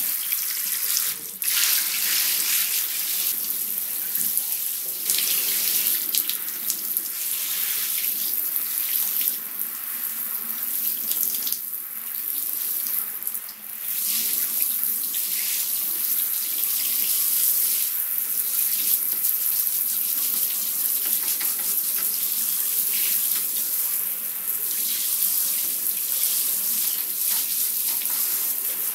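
Handheld shower head spraying water into a bathtub and over a lizard, a steady hiss that drops away briefly a few times.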